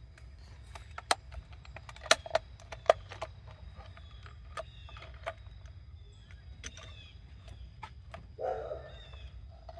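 Scattered sharp clicks and taps of plastic as the wiring and parts of a Honda Odyssey fuel pump module are pushed back into its housing by hand, the loudest about two and three seconds in.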